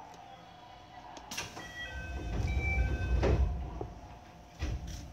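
Sliding doors of a JR West electric train closing at the platform: a clunk, a few short tones at different pitches, then a loud low rush and rumble two to three seconds in, and another clunk near the end.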